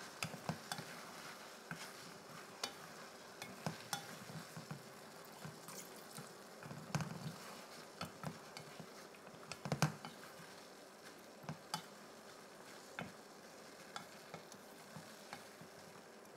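Wooden spatula stirring chicken in a stainless steel pan of curry, with irregular soft knocks and scrapes against the pan. A faint sizzle of the coconut-milk sauce cooking over high heat runs underneath.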